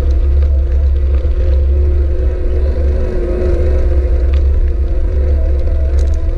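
Electric mountain bike riding along a dirt track: heavy wind and vibration rumble on the action camera's microphone, with a steady motor whine and scattered small clicks from the tyres on gravel.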